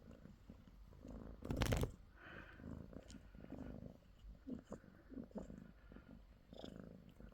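A cat purring, uneven and rough, with a short louder burst about one and a half seconds in.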